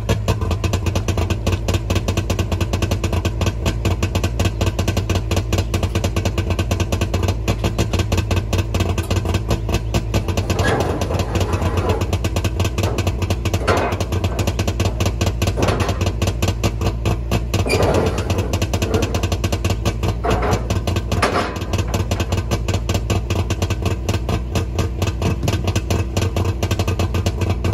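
Trabant two-cylinder two-stroke engine idling steadily with no exhaust pipe fitted, so its rapid, even pulses come straight out of the open exhaust. It is warming up just after a cold start, having sat unstarted for four or five months.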